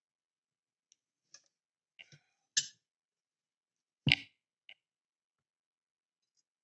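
Small screwdriver and screws clicking and tapping against a model car's chassis frame as it is handled and screwed together: scattered light ticks, with two louder knocks about two and a half and four seconds in.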